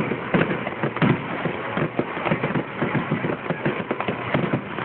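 Fireworks going off in quick succession: a dense, unbroken run of bangs and crackles, several a second, loudest right at the start and again about a second in.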